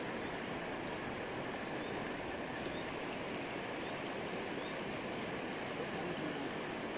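River water flowing, a steady even rushing with no breaks.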